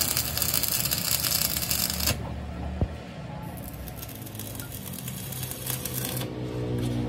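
Stick (arc) welding crackling and sizzling as a steel hub is welded onto a chaff cutter's main shaft. The crackle cuts off abruptly about two seconds in and starts again about a second and a half later.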